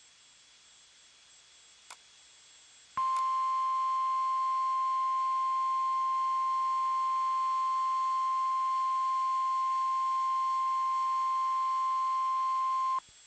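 About three seconds of near silence with one faint click, then the NOAA Weather Radio warning alert tone, a single steady 1050 Hz beep held about ten seconds that cuts off suddenly near the end. The tone signals that a warning message follows, here a severe thunderstorm warning.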